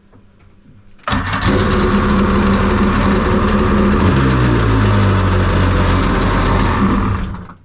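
Loud engine sound effect cutting in suddenly about a second in, running steadily and settling a little lower in pitch midway, then fading out near the end. It is a dubbed-in effect, not the boat's own 700 two-stroke, which has not yet been started.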